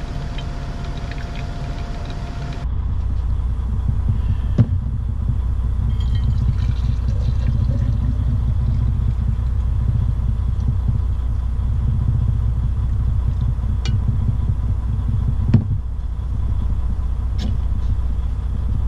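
Steady low rumble of a semi truck's idling diesel engine, heard from inside the sleeper cab. Two sharp knocks come about 5 seconds in and again near 16 seconds, as cups and containers are handled.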